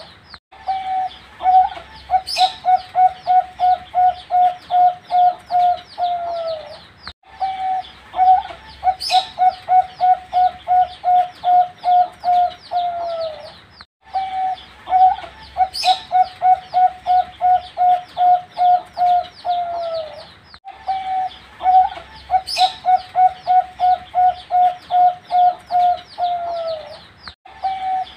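Young zebra dove (perkutut) cooing: each phrase is a quick run of about fifteen short clipped notes that ends in a falling note, and the same phrase comes back about every seven seconds, four times over. High chirping of other birds runs behind it.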